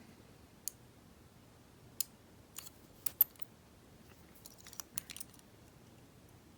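Scattered small metallic clicks and scrapes of a lock pick and tension wrench working the pins inside a US Mail registered padlock, the sharpest pair of clicks a little after three seconds in.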